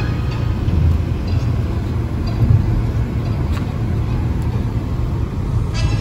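Steady low road and tyre rumble from inside a car moving at highway speed.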